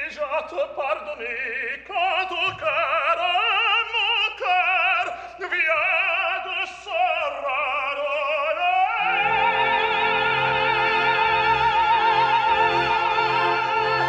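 Tenor and soprano singing an opera duet with orchestra: sung phrases with wide vibrato, then from about nine seconds a long high note held with vibrato as the orchestra fills in fuller underneath.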